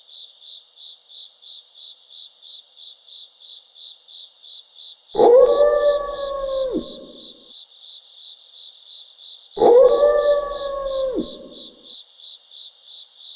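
A wolf howl sound effect, played twice the same way: each howl rises quickly, holds one pitch for about a second and a half, then drops off, with a short echo after it. Under it, crickets chirp steadily in a pulsing rhythm.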